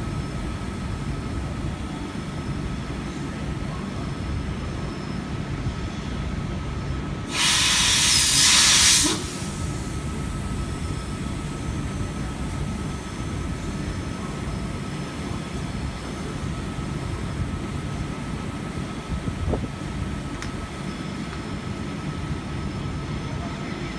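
Standing V set double-deck electric trains running with a steady low hum and a faint whine, broken about seven seconds in by a loud hiss of compressed air lasting a little under two seconds, as the coupled sets are being divided.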